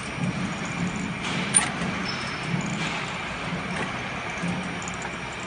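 Automatic bottle filling and capping machine running: a steady mechanical hum with repeated low thumps and a few sharp clicks.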